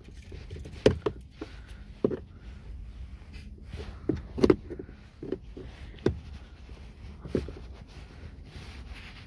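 Flat-blade screwdriver prying at a plastic door courtesy lamp set in car door trim: irregular sharp clicks and taps of metal tip on plastic, spread over several seconds, over a low steady rumble.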